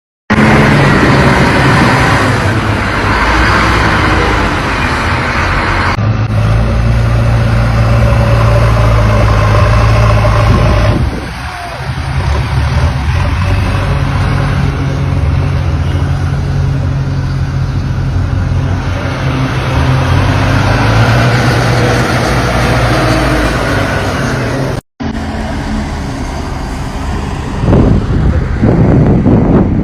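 Motor vehicle engine running with steady road and rushing noise, broken by abrupt cuts between shots.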